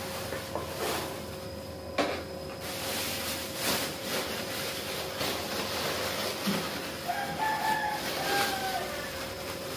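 Thin plastic bags rustling and crinkling as green chillies are bagged by hand, with a sharp tap about two seconds in. A rooster crows in the background near the end.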